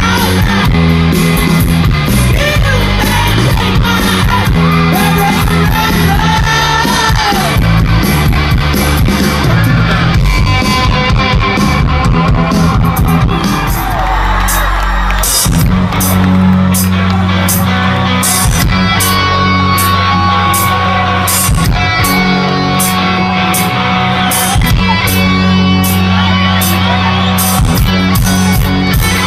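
Rock band playing live and loud: electric guitars, bass and drums with a singer's voice.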